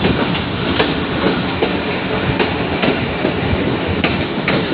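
Passenger train coach running at speed, heard from on board: a steady rumble and rush with wheels clacking irregularly over rail joints, a few clacks a second.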